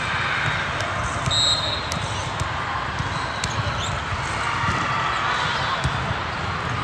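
A basketball being dribbled on a hard court floor, a run of dull thumps, with a short high sneaker squeak about a second and a half in and a steady hum of activity in a large hall.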